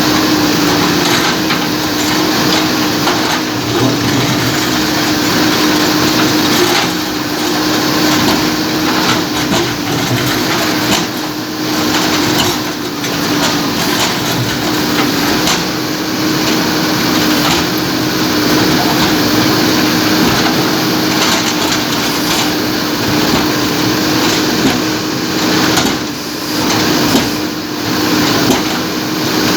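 JCB backhoe loader's diesel engine running steadily under load, with a held whine, as it breaks up an old bridge, with a few knocks and crunches of broken material.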